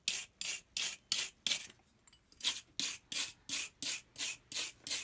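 Steel wire brush scrubbing a small brass pump cover plate in quick back-and-forth strokes, about three a second, with a short pause a little under two seconds in.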